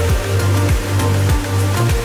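Electronic dance music with a deep, steady bass and a kick drum beating about every two-thirds of a second.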